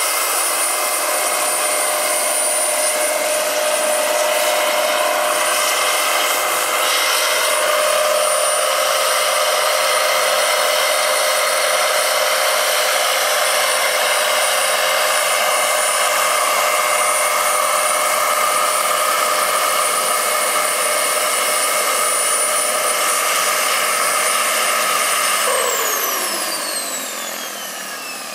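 Scale-model CH-46 Sea Knight helicopter with a model turbine engine running, a steady high turbine whine over rotor noise while it hovers low. Near the end, once it is down on the grass, the whine slides down in pitch and the sound drops away as the turbine spools down.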